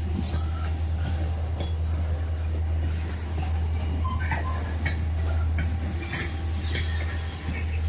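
Freight cars of a train rolling by: a steady low rumble with scattered metallic clinks and squeaks from the cars.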